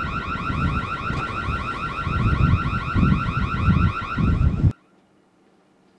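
Electronic security alarm for a building's exterior door sounding, a rapid, continuous warbling tone. Beneath it, a low rumble swells louder several times. Both cut off suddenly about three-quarters of the way through.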